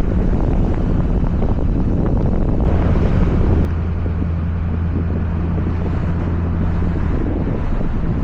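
Driving noise from a moving vehicle: a steady low engine hum under road and wind roar, with wind buffeting the microphone. A louder rush of noise swells about three seconds in and cuts off shortly after, leaving a slightly quieter, steady drone.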